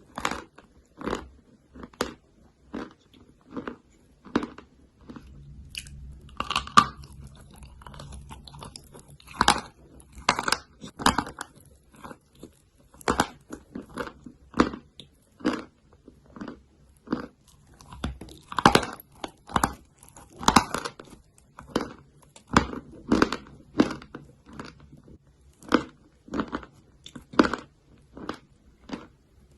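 Chalk being bitten and chewed close to the microphone: a run of short, sharp, dry crunches, roughly one a second.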